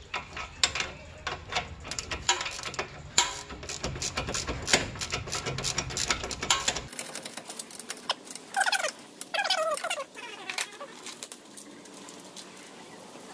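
Irregular metallic clicks and clinks of hand tools working on a pickup's front suspension for about the first half. Later come a few short, wavering animal calls.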